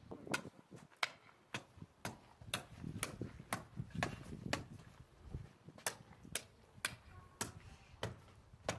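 Sharp clicks at an even pace of about two a second, over faint irregular low scraping and knocking.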